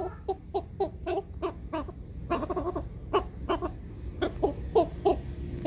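White bearded silkie rooster giving a rapid series of short, pitched clucks, about three to four a second in runs. These are food calls: the rooster is announcing that he has found something.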